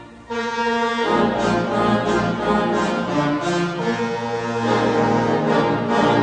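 Background music: an instrumental score added to a silent cartoon, dipping briefly at the start and then resuming.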